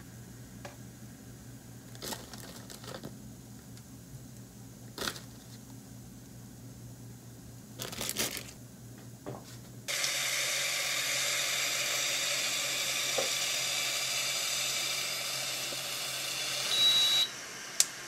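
Light clicks and knocks of kitchen handling over a low hum. About ten seconds in, a steady hiss begins suddenly and stops near the end, just after a short beep; a sharp click follows.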